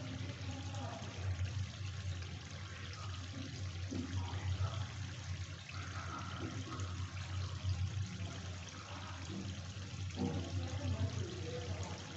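Chicken curry simmering in a kadai over a gas flame, the thick gravy bubbling and lightly sizzling, over a steady low hum.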